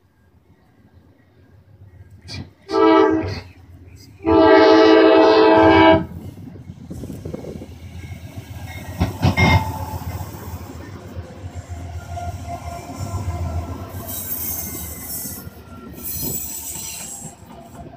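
Norfolk Southern diesel freight locomotive's air horn sounding a short blast and then a longer one, followed by the lead locomotives rumbling past with clicks of wheels over the rails. Two bursts of high hiss come near the end.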